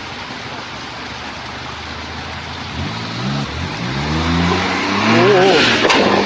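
Rushing creek water, then about three seconds in a Suzuki Jimny JB23's small three-cylinder turbo engine revs up under load as it climbs over wet rocks. Its pitch rises and wavers and it gets louder, loudest near the end.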